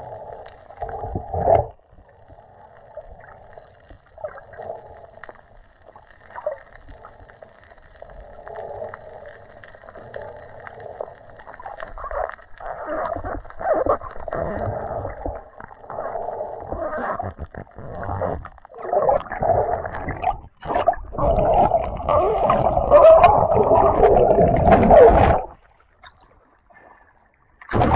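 Muffled underwater water noise and gurgling picked up by an action camera in its waterproof housing as it moves through the water over a reef. It grows louder in the second half, then drops away abruptly about 25 seconds in.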